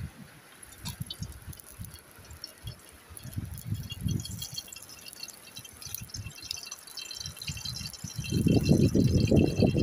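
Cooking oil glugging out of a plastic bottle into a wok over a wood fire. A faint crackling starts after a few seconds, and a louder low rumbling comes in near the end.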